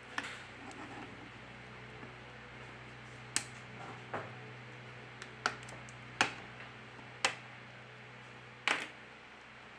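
Sharp, short clicks and snaps, about eight at irregular intervals, as a thin opening tool pries the back cover off a BQ Aquaris C phone around its edge, the cover's clips popping loose.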